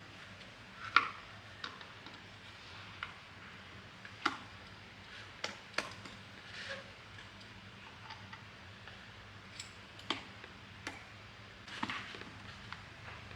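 Light clicks and knocks of tools and parts being handled during a feed slicer repair. About a dozen come at irregular intervals over a faint steady hum.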